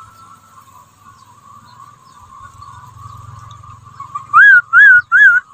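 A person whistling three short notes, each rising then falling, about half a second apart near the end: a whistle the angler uses to call wader fish to the bait.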